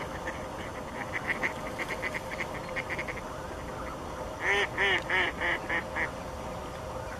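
Mallards quacking: a run of quick, softer quacks, then about halfway through five loud quacks in a row, each a little quieter than the one before, the pattern of a hen mallard's descending call.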